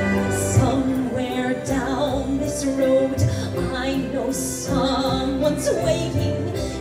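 A woman singing a Broadway show tune into a handheld microphone, her voice rising and falling over orchestral accompaniment that holds sustained chords.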